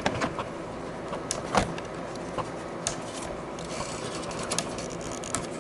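A handful of small, sharp plastic clicks and light taps as fingers flip up the locking tabs on a laptop's ribbon-cable connectors and handle the flat cables. A steady low hiss runs underneath.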